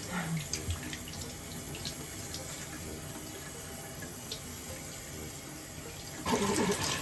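Tap water running steadily into a sink while a kitten is being washed; the flow gets noticeably louder about six seconds in.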